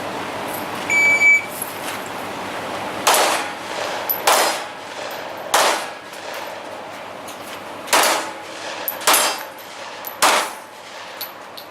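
A shot timer beeps once, then six gunshots follow, spaced about one to two seconds apart with a longer pause after the third, as a shooter works a timed course of fire.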